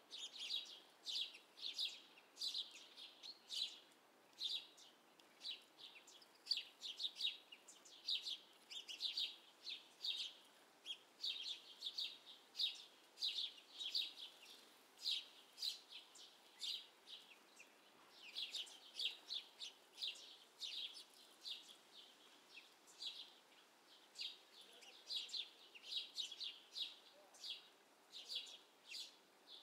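Small songbirds chirping, short high notes in quick runs that repeat all the way through.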